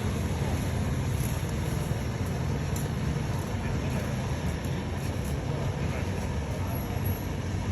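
A steady low mechanical rumble with a constant hiss, like a motor vehicle running.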